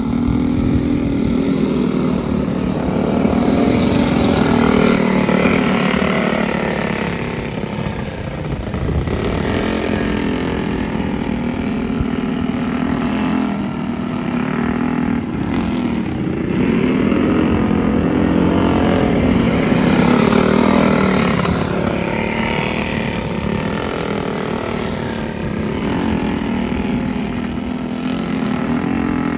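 Small single-cylinder racing engines of several small dirt-track racers running together around the oval, their pitches rising and falling as they throttle through the turns. The sound swells twice as the pack passes close and fades between.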